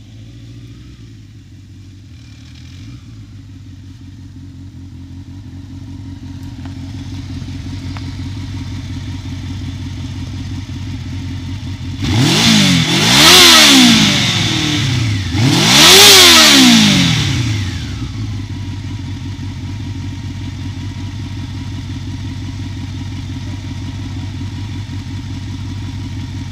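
1984 Honda CB700SC Nighthawk's inline-four engine running, growing louder as the bike rides up and stops, then idling steadily. About halfway through it is revved twice, each rev climbing and dropping back, before it settles to idle again.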